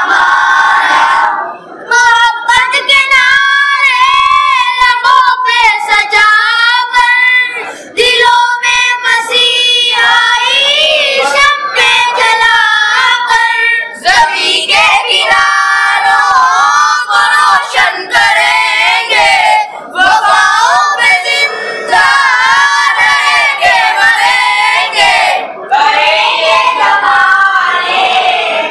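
A group of boys singing an Urdu tarana together into a microphone, with short breaks between lines every few seconds.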